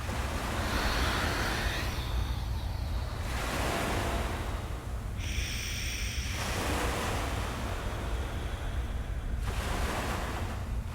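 Ocean waves on a background sound track: surf washing in and drawing back in several slow swells over a steady low rumble.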